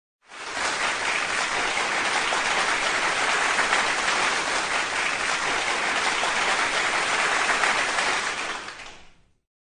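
Applause: steady, dense clapping of many hands that fades in over the first half second and fades out about nine seconds in.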